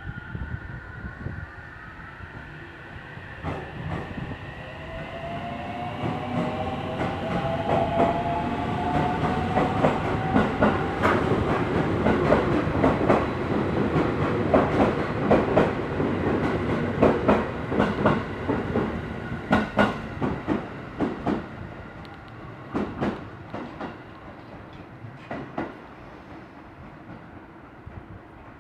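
Electric train passing on the Tokaido Main Line, its traction motors giving a whine that rises in pitch and its wheels clacking over rail joints. It grows loud toward the middle and fades away near the end.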